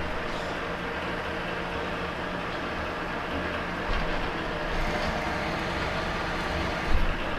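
Metal lathe running steadily while a single-point threading tool cuts a 14-pitch thread on a hydraulic cylinder piston rod, with oil on the cut. Low thumps sound about four seconds in and again near the end.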